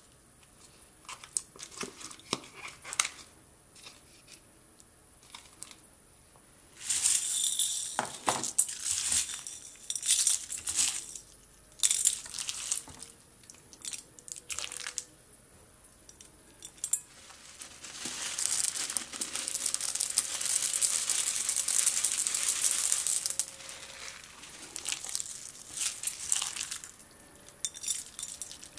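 Crunchy fishbowl slime, clear glue slime full of clear plastic fishbowl beads, being mixed and squeezed by hand in a glass bowl. The beads give scattered crackles and clicks, with two longer spells of dense crackling, about seven seconds in and from about eighteen to twenty-three seconds.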